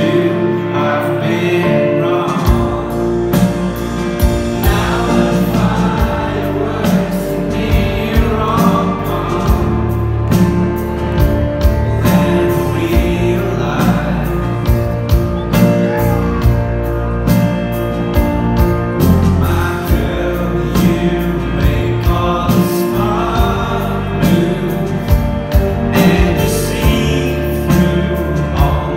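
Live rock band playing loudly: a male lead vocal over electric guitars and bass, with the full drum beat coming in about two and a half seconds in.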